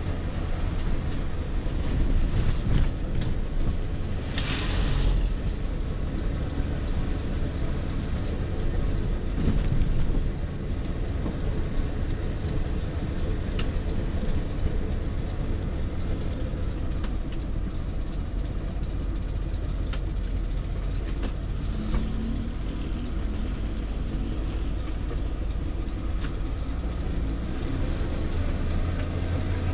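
DKW Vemag Belcar's two-stroke three-cylinder engine running as the car drives, heard from inside the cabin together with road noise. A brief hiss comes about four seconds in, and the engine note rises near the end.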